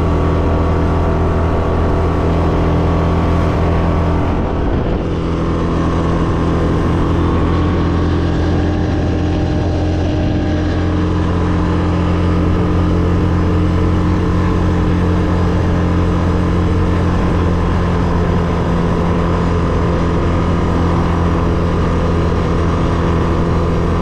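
ATV engine running steadily under way. It eases off briefly about four seconds in, then picks up again.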